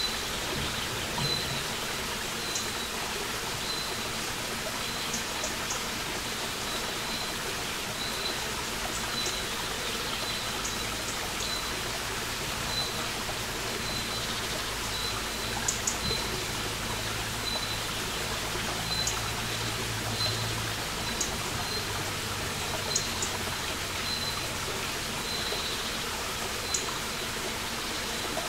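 Small forest brook trickling and running steadily over stones. A bird's short, high call repeats a little under once a second, with scattered sharp ticks over it.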